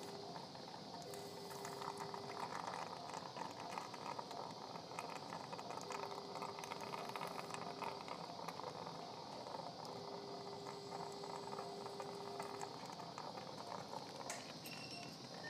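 Surgical suction tip drawing fluid out of an open chest cavity: a continuous crackling, gurgling slurp. A steady low electronic tone sounds four times, each for about one to three seconds.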